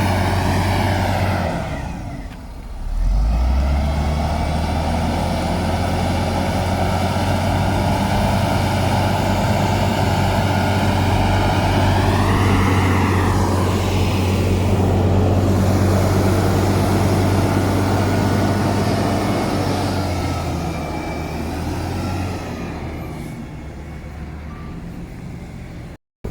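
Heavy earthmoving machine's diesel engine running hard, with a brief drop about two seconds in and a rise in revs around twelve seconds in, easing off toward the end.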